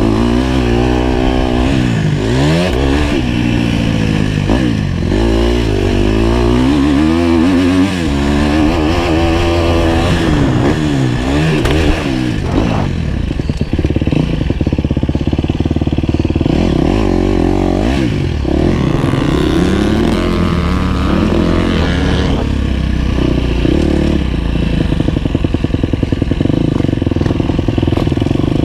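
Dirt bike engine heard from the rider's own bike, revving up and down again and again as the throttle is opened and closed through the track's bumps and turns. Over the last few seconds it runs at low, steady revs as the bike rolls slowly.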